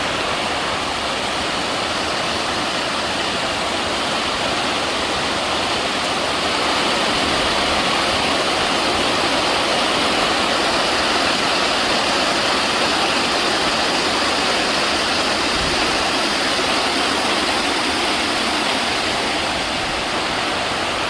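Waterfall splashing: a loud, steady rush of falling water, swelling a little about a third of the way in.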